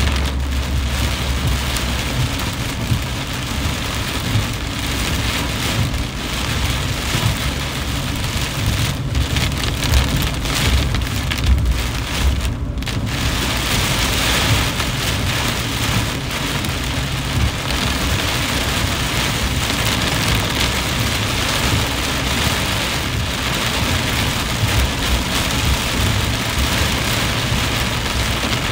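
Heavy rain hitting a car's roof and windshield, heard from inside the car, over the low rumble of the car driving on a wet road.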